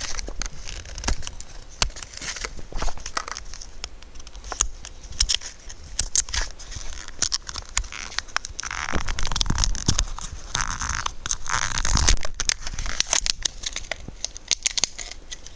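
Packaging being opened by hand: crinkling, tearing and scattered sharp clicks, with a longer, denser stretch of rustling and tearing about nine to twelve seconds in.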